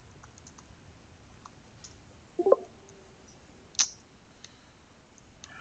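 Scattered computer mouse clicks and keystrokes. A louder knock comes about two and a half seconds in, and a sharp click just before four seconds.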